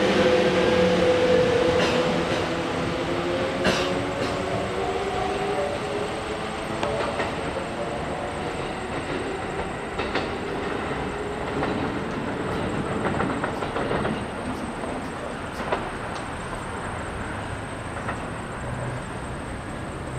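Kintetsu 22000 series electric train pulling away: its traction motors give a multi-tone whine that bends and fades over the first several seconds, then the rumble of the wheels, with a few sharp clicks over the rail joints, grows steadily fainter as the train moves off.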